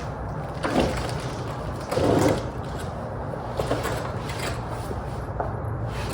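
Tools and parts being handled under a car during an oil change: a few knocks and scrapes, the loudest about two seconds in, over a steady low hum.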